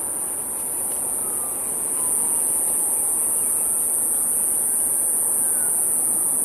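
Steady, high-pitched insect chorus that grows louder about two seconds in, over a low rumble of distant traffic with faint gliding tones.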